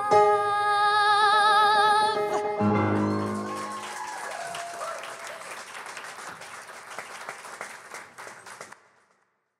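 A woman's voice holds the song's final note with vibrato over the accompaniment, which ends on a low closing chord. Then an audience applauds, thinning out and stopping near the end.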